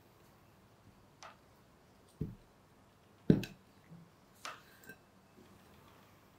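A spatula and a glass mixing bowl knocking and clicking while crumbly shortbread dough is mixed. There are about five scattered knocks, and the loudest is a thump a little over three seconds in.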